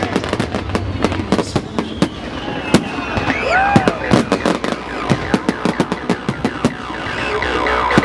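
Fireworks display going off: a dense run of sharp bangs, pops and crackles following each other rapidly throughout.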